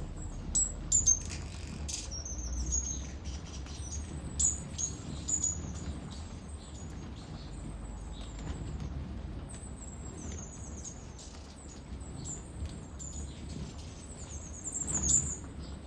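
Hummingbirds calling: a steady run of short, very high, thin squeaky chirps and twitters, thickest near the end.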